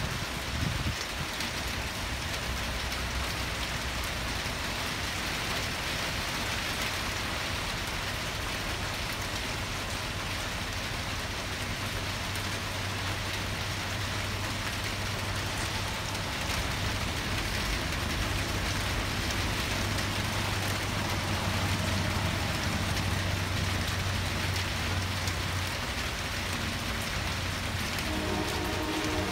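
Heavy rain falling steadily, with a low rumble running through the middle. Near the end a diesel locomotive's air horn starts to sound as the train approaches the crossing.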